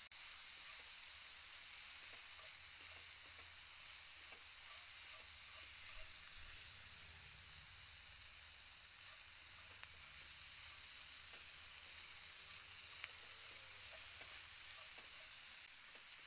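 Food sizzling steadily in a pan, with a few faint ticks of a utensil against it.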